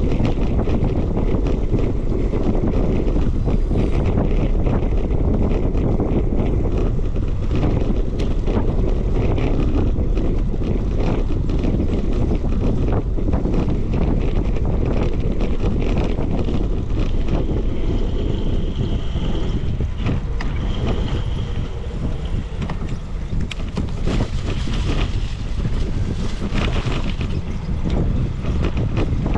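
Wind buffeting the microphone on a moving bicycle, a steady low rumble with frequent small rattles and clicks. Two short high tones come a little past the middle.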